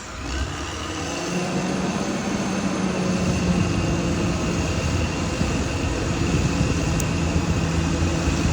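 Caterpillar D6R XL bulldozer's diesel engine working, growing louder about a second in and then running steadily.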